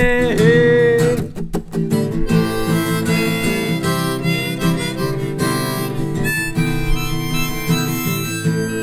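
Instrumental break of an acoustic folk song: a held sung note ends about a second in, then a harmonica plays a solo over acoustic guitar.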